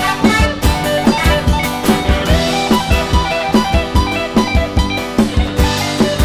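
Instrumental break in an upbeat Thai song: a plucked-string melody over a steady drum-kit beat, with no singing.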